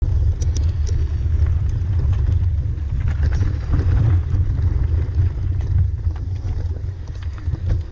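Mountain bikes riding slowly in a tight pack over a rough dirt trail: steady low rumble from the camera being shaken on the ride, with scattered clicks and rattles from the bikes.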